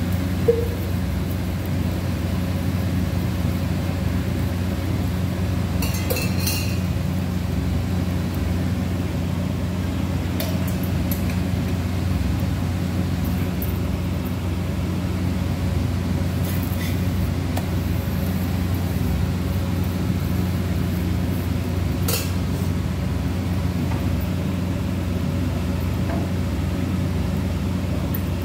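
Steady low machine hum, with a few light clinks of steel kitchen utensils about 6, 10 and 22 seconds in.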